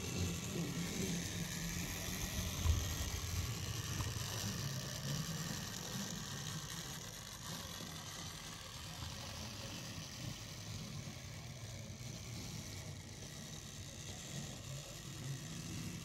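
Battery-powered TrackMaster Flora toy tram running on plastic track: its small motor whirring steadily with the wheels rolling along the rails, and a brief knock about three seconds in.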